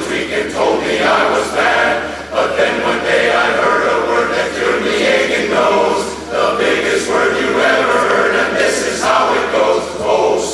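Male barbershop chorus singing a cappella in close harmony, in phrases of a second or two.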